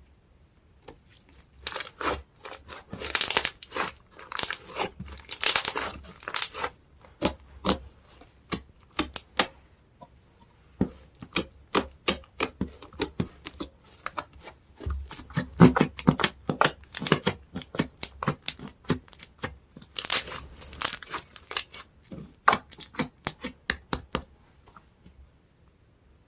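Tacky slime being squished and stretched by hand. It gives off a long run of quick sticky pops, clicks and crackles, thickest a couple of seconds in and again about twenty seconds in.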